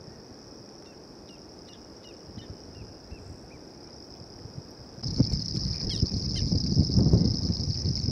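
A steady, high-pitched insect buzz, with a quick run of short, falling chirps from a small bird in the first few seconds. About five seconds in, everything gets louder and a low rumble joins, with a few more chirps.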